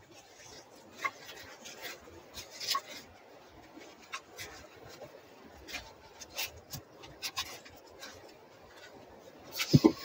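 Scattered rubbing and clicking as a webbing strap is pulled and worked tight around upright birch log sections, with a louder knock just before the end.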